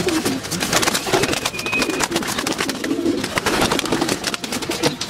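Domestic racing pigeons cooing in their loft, low repeated coos, over frequent short clicks and rustles as the birds move and are handled.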